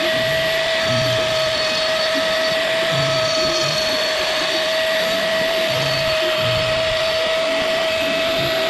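Power tool motor running steadily, with a constant high whine over a rushing noise.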